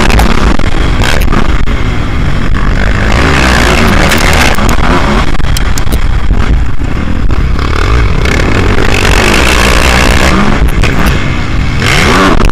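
Motocross bike engine revving hard, its pitch repeatedly rising and falling as the rider accelerates and shifts, over a constant low rumble of wind and dirt on the bike-mounted camera.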